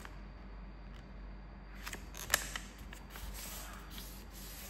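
A sheet of paper being folded in half by hand: soft rustling, with a short sharp crinkle a little past two seconds in as the paper is handled and creased.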